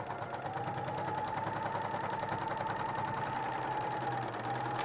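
BERNINA serger running at a steady speed, sewing a four-thread overlock seam through layered fabric while its knife trims the edges: a rapid, even whirring with a steady whine that dips briefly about four seconds in.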